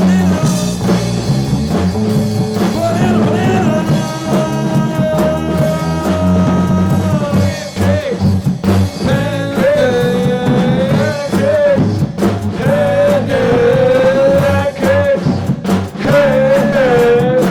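Rock band playing: bass and drums under a lead line of long held notes, one held steady for several seconds, then wavering notes with vibrato.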